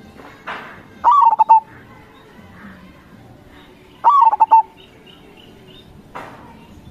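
Zebra dove (perkutut) singing its cooing phrase twice, about three seconds apart, each a quick run of several short notes. Two brief rushing noises come just before the first phrase and near the end.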